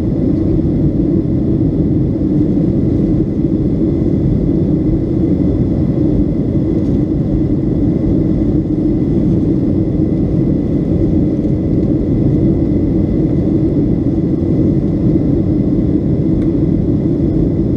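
Steady cabin roar inside a Boeing 757-200 airliner in flight: engine and airflow noise from its Rolls-Royce RB211 engines, heard from a window seat. It is a deep, even roar with a faint high whine over it.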